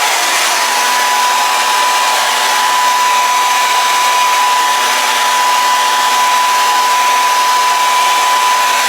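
Handheld hair dryer blowing steadily and loudly, a steady whine over the rush of air.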